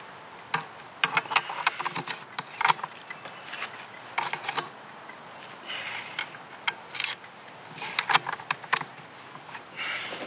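Metal clicks and clacks of a Remington 700 bolt-action rifle being handled and loaded, coming in short clusters of quick clicks.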